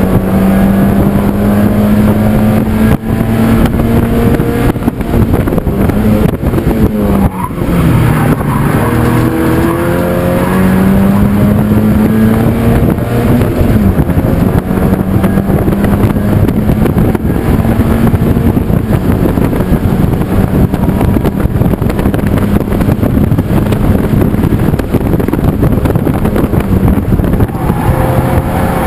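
Race car engine heard from inside the open cockpit, running hard under racing load. The revs fall sharply about seven seconds in, climb again, dip briefly near fourteen seconds as a gear is changed, then hold steady for the rest of the stretch, over a constant rushing noise.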